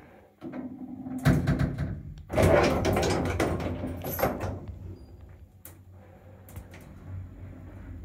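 Passenger lift doors moving: a sliding run with a couple of knocks about a second and two seconds in, then a quieter low hum with a few clicks.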